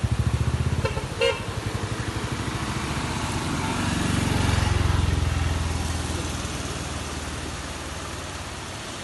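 A motor vehicle's engine running close by, with a short horn toot about a second in; the engine grows louder toward the middle and then fades away as it passes.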